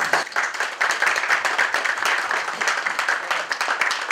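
Applause: a roomful of people clapping their hands, breaking out suddenly and keeping up steadily.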